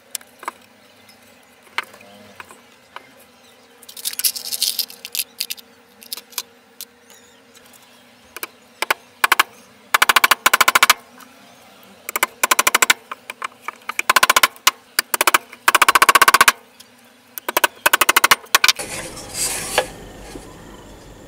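Hammer driving small nails into a thin board on a wooden box, in several quick runs of rapid taps from about halfway, with a few single knocks before them.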